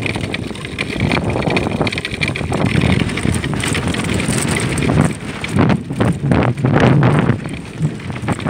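Wind buffeting the microphone on a speeding ice sailboat: a rough, uneven rumble of rushing air that gusts harder in the second half.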